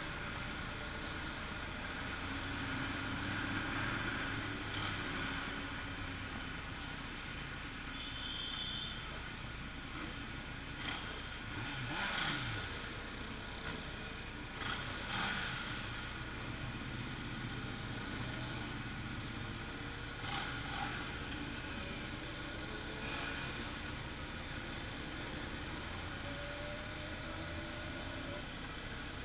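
Kawasaki Z750's inline-four engine running at low speed in a group of motorcycles, picked up by a camera mounted on the bike. The engine rises in pitch a few times as it revs, and there are a few sharp knocks around the middle.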